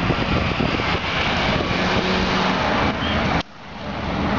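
BMW M3 engine running hard as the car is driven in tight turns. About three and a half seconds in, the sound drops suddenly and builds back up over the next second.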